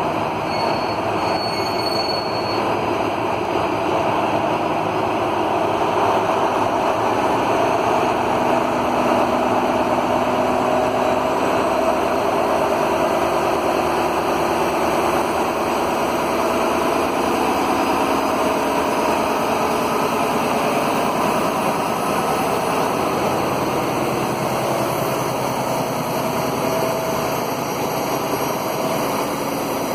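Two coupled Dv12 diesel-hydraulic locomotives running under power as they pull a freight train away from a station and past close by, a steady engine drone over rail and running-gear noise.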